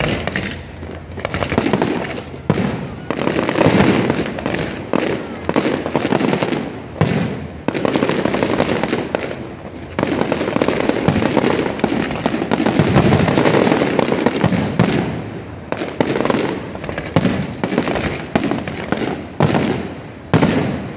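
Aerial fireworks display: a dense barrage of shell bursts, many bangs a second running into one another with no pause.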